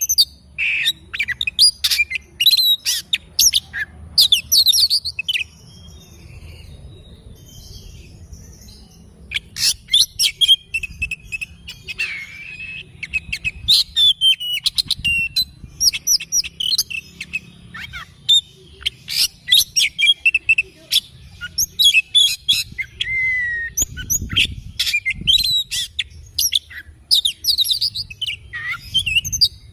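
Oriental magpie-robin (kacer) singing: a fast, varied run of chirps, whistles and trills that breaks off for a few seconds about a fifth of the way in, then resumes. A faint low hum runs underneath.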